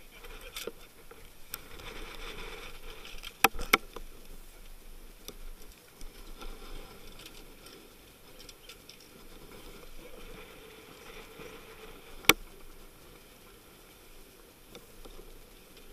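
Wind and sea noise aboard a sailing yacht under way in rough water, with sharp knocks: two close together about three and a half seconds in and another about twelve seconds in.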